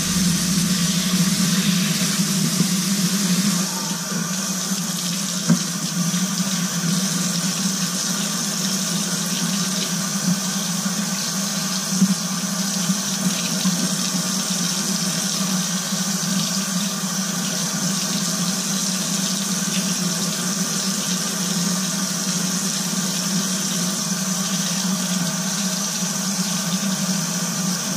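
Cold-water kitchen tap running steadily into a sink while salmon fillets are rinsed under it, dropping a little about four seconds in and cut off suddenly at the end.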